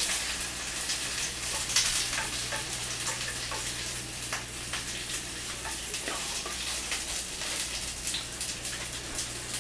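Diced onions sizzling in oil in a frying pan as they soften: a steady hiss with scattered crackles.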